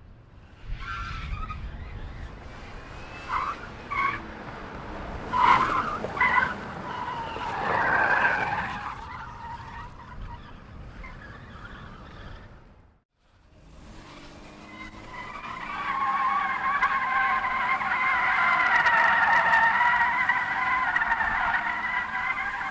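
Car tires screeching on pavement: a few short squeals and a longer screech, then after a brief pause a long, sustained screech that builds up and holds.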